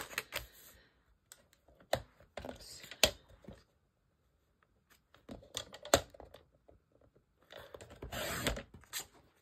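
Sharp clicks and taps of paper and the cutting head being set on a Fiskars sliding paper trimmer, then, near the end, the trimmer's blade slid along its rail, cutting through patterned cardstock paper with a rasping swish of about a second and a half.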